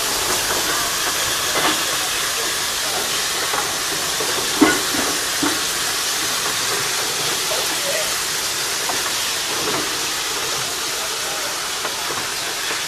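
Steam hissing steadily from the 0-4-0T tank locomotive Jeddo Coal #85, with a few brief sharper sounds over it, the sharpest a little under five seconds in.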